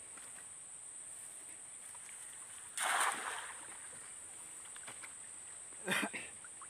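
A cast net lands on still water with one splash about three seconds in, as its weighted rim hits the surface. A second, shorter sound comes just before the end, over a steady high insect drone.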